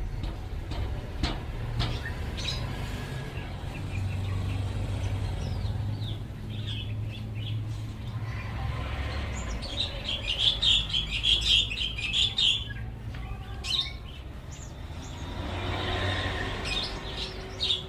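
Small birds chirping in a quick burst of calls in the middle, over a steady low hum, with a few scattered sharp clicks.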